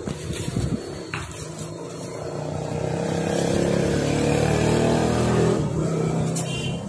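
A motor vehicle's engine passing nearby, its hum building over a few seconds and fading near the end. A light click of metal parts being handled comes about a second in.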